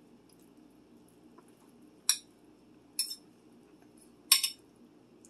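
A metal fork clinking against a plate three times, about a second apart, while food is scooped up to eat.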